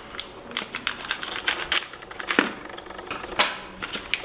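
Scissors snipping open a metallised anti-static bag, with the plastic crinkling and crackling as it is pulled open: a run of irregular sharp clicks, the loudest about two and a half and three and a half seconds in.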